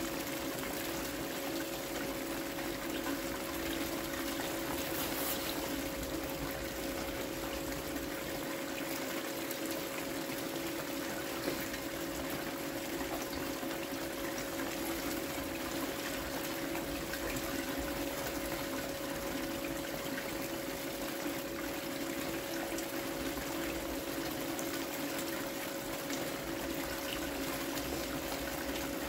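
Water pouring and trickling steadily through a Gold Cube vortex sluice lined with a micro mini Dream Mat, over the constant hum of the small pump that feeds it. The setup is running smoothly.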